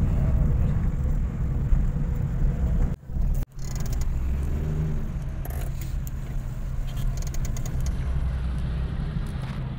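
Steady low rumble of a small car driving, engine and road noise heard from inside the cabin. The sound cuts out briefly about three seconds in.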